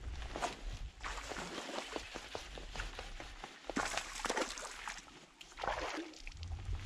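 A small hooked bass splashing at the water's surface several times as it is reeled to the boat and swung out of the water, with quick clicking from the fishing reel and rod handling.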